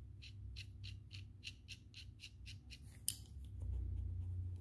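Locking adjustable wrench's knurled worm screw turned by thumb: a run of light metal clicks, about three or four a second. About three seconds in comes one sharper metallic click, then a low handling rumble.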